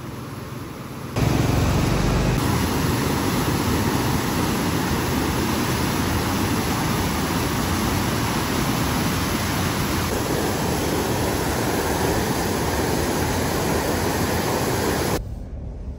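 Swollen, fast-flowing mountain stream after a flash flood rushing loudly and steadily. The sound cuts in suddenly about a second in and stops abruptly near the end.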